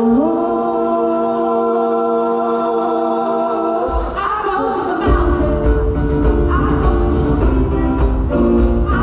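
Live gospel-style choir holding a long sustained chord, several voices on steady notes. About four to five seconds in, the chord breaks and a backing band with heavy bass and drums comes in under the singing.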